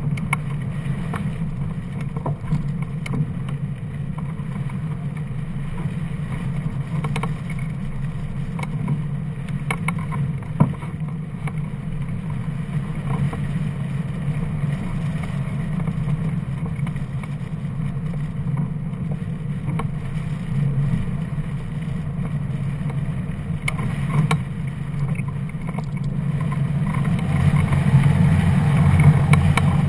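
Rushing airflow on a hang glider's mounted camera in flight: a steady low wind rumble with a few light clicks, growing louder near the end.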